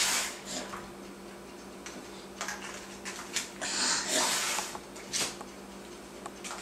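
Breathy puffs of someone blowing through a bubble wand: a burst as it starts, two longer ones around four seconds in and a short one near five seconds. A steady low hum runs underneath.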